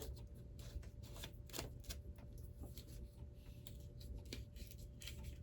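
Scattered, irregular light clicks and taps of small items being handled at a model-painting bench, over a faint steady hum.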